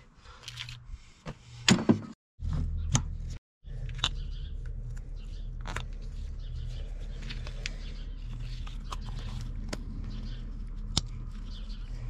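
Scattered clicks and clinks of a wrench and plastic wiring connectors being worked onto a skid steer engine. The loudest two clicks come near two seconds in, and a steady low hum runs under the rest. The sound cuts out briefly twice early on.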